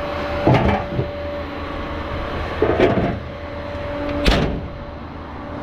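A vehicle engine idles with a steady hum while three separate clunks sound, like doors or gear being shut or handled; the last clunk is the sharpest.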